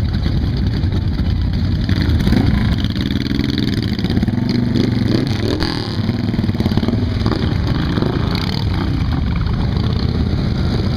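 Several cruiser motorcycles' engines running in a low, steady rumble as they ride slowly past, with an engine revving up and down a few seconds in.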